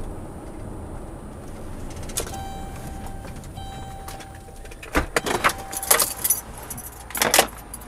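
Cabin and road noise of a car slowing nearly to a stop. A steady electronic chime sounds twice in the middle. A run of sharp clicks and rattles follows near the end.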